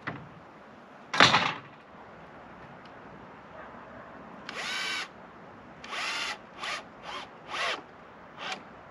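Power drill run in short start-stop bursts against a bamboo pole: one half-second run, then about five shorter pulls of the trigger. A brief loud burst of noise comes about a second in, before the drill starts.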